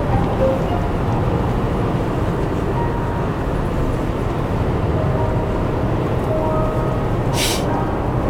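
Steady road and engine noise inside a car's cabin while driving at highway speed. A brief hiss about seven seconds in.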